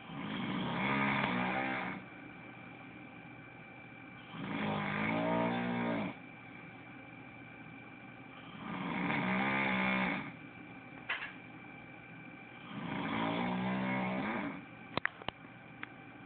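A person snoring: four long snores at an even pace of about one every four seconds, with a few short sharp clicks between the last two.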